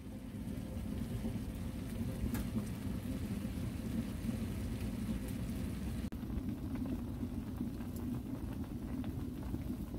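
Beef and bean sprouts sizzling on a cast-iron griddle pan over a wood stove, a steady crackling hiss. About six seconds in it changes to water boiling hard in an aluminium mess tin.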